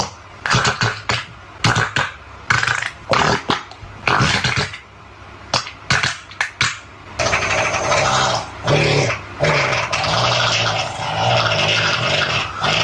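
Farting sound effect: a quick series of short, loud, rasping fart noises, then a longer drawn-out fart from about seven seconds in.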